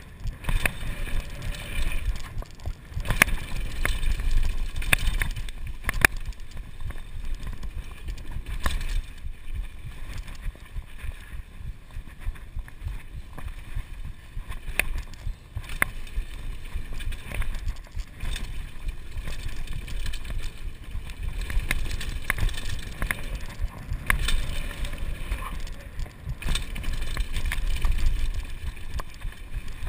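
Kona Supreme Operator downhill mountain bike running fast down a dirt trail: knobby tyres rolling over packed dirt and loose stones, with frequent sharp clacks and rattles as it hits bumps. Wind buffets the microphone with a steady low rumble throughout.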